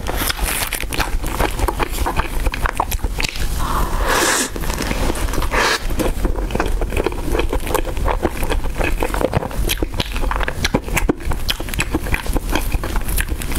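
Close-miked chewing of a choux pastry puff with a crumbly topping: dense, rapid crackling and crunching, with a few breathy mouth sounds between.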